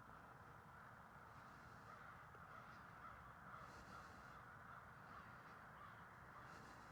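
Crows cawing faintly in the background, a handful of scattered calls over a steady low hiss.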